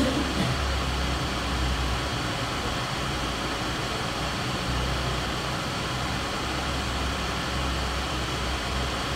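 Steady background hiss with a low hum underneath, unchanging throughout.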